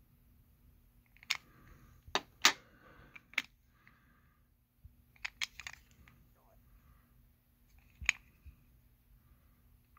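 Sharp plastic clicks and taps from a clear plastic coin capsule holding a silver Kookaburra coin as it is turned over in the fingers. The clicks come singly and in quick pairs, loudest a couple of seconds in.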